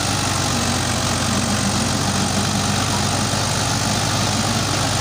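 Diesel engines of a Swaraj 855 FE and a Powertrac Euro 50 tractor running hard and steady, pulling against each other under load in a tug of war.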